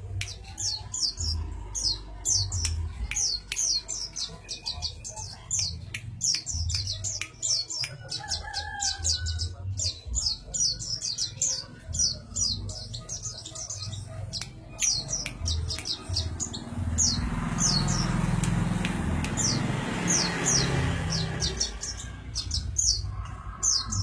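A sogok ontong songbird calling rapidly and without pause: a long series of short, high, sharp notes, a few each second. Low thumps run beneath it, and a rustling noise rises for several seconds past the middle.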